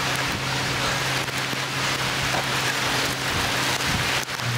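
Rain falling steadily, a dense even hiss, with a steady low hum running beneath it.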